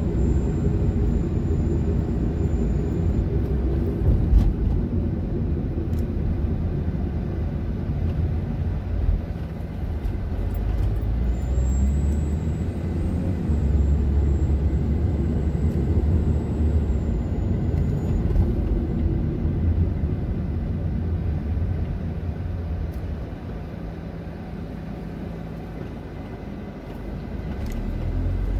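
A car driving along a street, heard from the car itself: a steady low rumble of engine and road noise. It eases off for a few seconds late on and picks up again near the end.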